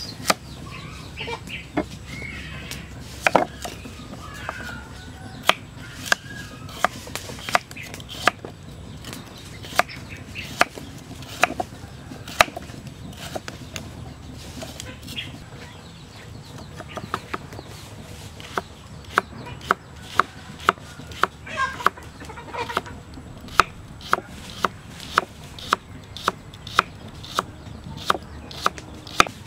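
Knife slicing a carrot on a wooden stump chopping block: sharp knocks of the blade meeting the wood, spaced about a second apart at first, then quicker and more regular in the second half. Chickens cluck in the background.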